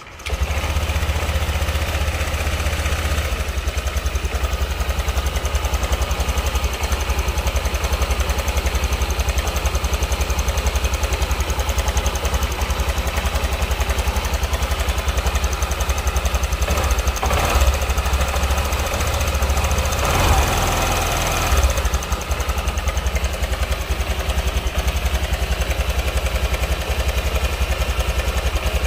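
Honda Vario scooter's liquid-cooled single-cylinder engine idling with a rough, rattling sound, which the mechanic puts down to a worn cam chain tensioner.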